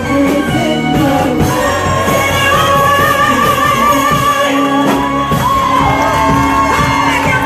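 Gospel praise-and-worship song: singers holding long, wavering notes over a full band with drums.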